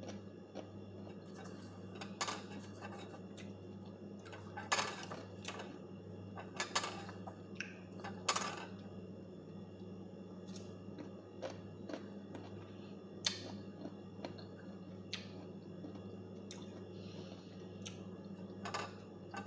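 Someone eating crisp slices of raw sour mango: scattered crunching bites and chewing, with light clicks and clinks of fingers and a utensil against a ceramic plate and small bowl. A faint steady low hum runs underneath.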